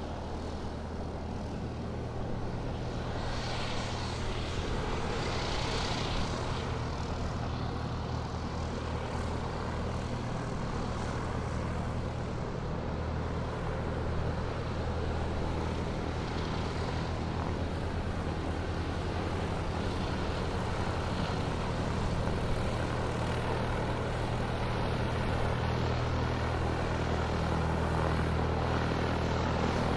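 Airplane engine running steadily as the aircraft taxis, a low droning hum that slowly grows louder.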